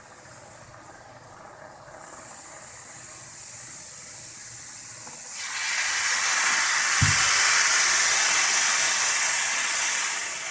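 Hot vinegar fizzing and hissing as baking soda foams up in a stainless steel pot. The hiss grows much louder a little over five seconds in as the foam rises to the rim, with a single low thump about two seconds after that.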